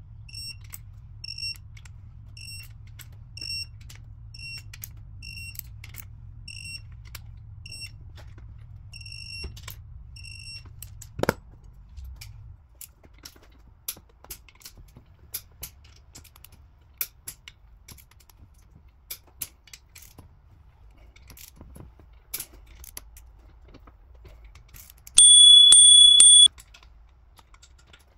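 Digital torque wrench beeping about once a second for the first ten seconds while the main bearing cap bolts are tightened, then a sharp click and scattered clicks of the wrench. Near the end a single loud, steady, high beep lasts over a second, the kind of tone a digital torque wrench gives when the set torque or angle is reached.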